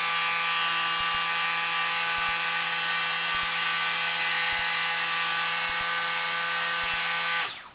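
Bixler RC plane's electric motor and propeller running at a steady, constant-pitch whine with the throttle held at 25% by the transmitter's stunt mode. It cuts off suddenly near the end.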